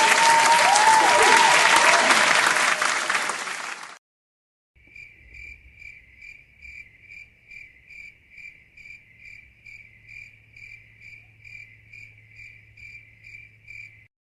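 Crowd applause with whistles, fading out over the first four seconds. After a short silence, a cricket chirps steadily at about three chirps a second: the stock 'crickets' effect for an awkward silence.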